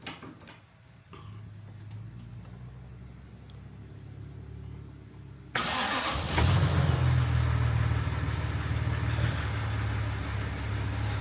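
Jaguar Mk2's XK straight-six engine, a steady low hum at first, then suddenly much louder about halfway through and running steadily at idle.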